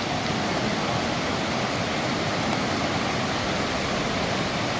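Floodwater of a stream in flash flood rushing past, a steady dense rushing noise.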